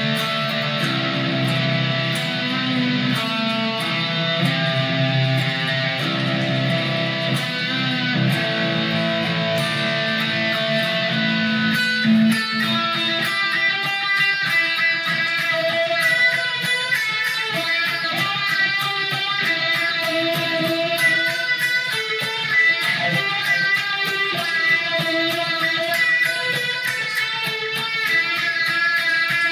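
Electric guitar played through a Line 6 POD X3 Live modeler, picking a slow melodic chord part, recorded on an iPhone's built-in microphone. About twelve seconds in, the heavy low notes drop away and higher picked notes carry the melody.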